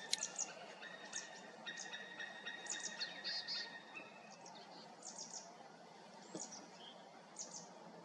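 Incubating male white-tailed eagle giving a series of short, sharp, high-pitched calls at irregular intervals from its nest.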